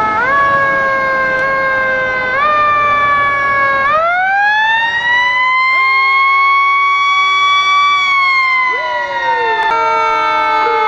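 Several emergency-vehicle sirens from a parade line of fire trucks and an ambulance sound together, their pitches overlapping. One winds up from about four seconds in, holds a high steady pitch, and starts to wind down after about eight seconds, while shorter falling yelps come in near the end.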